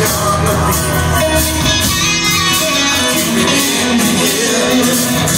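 A live band playing rock music: strummed guitars over bass and drums, with cymbals keeping a steady beat.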